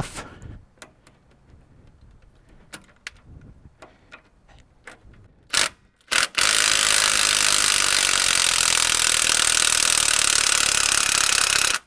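Small metal clicks as a socket and wrench are fitted to a 13 mm stabilizer link nut, and two sharper knocks about halfway in. Then a power wrench runs steadily for about five seconds, spinning the nut off, and stops abruptly.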